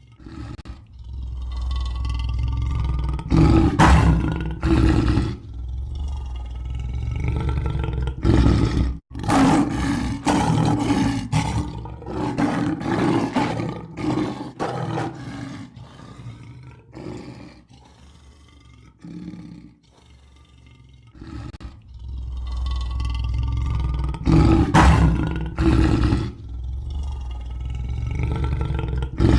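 Lion roaring: a series of deep, rough roars and grunts in loud bouts with short pauses between them, the same sequence starting over near the end.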